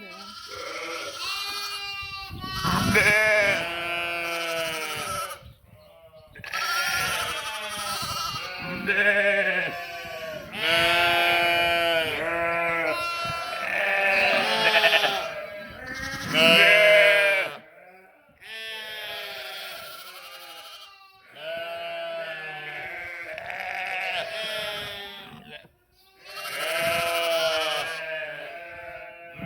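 A flock of sheep and lambs bleating, many calls overlapping one after another at different pitches, each call quavering, with a few short pauses between bouts.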